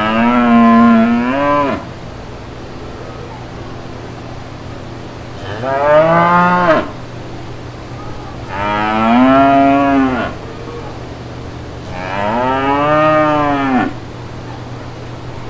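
Cattle mooing: four separate long moos a few seconds apart, each lasting a second and a half to two seconds, over a steady low hum.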